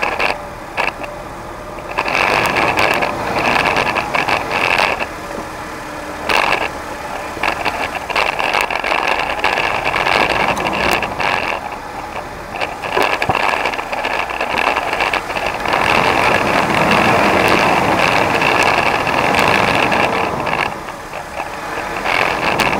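Off-road 4x4 crawling over granite boulders: its engine running with a steady high whine, and scattered knocks and rattles as the vehicle climbs the rocks.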